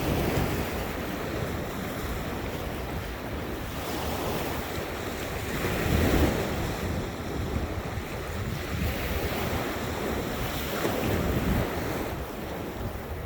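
Ocean surf washing onto a beach, swelling louder twice as waves break, with wind buffeting the microphone.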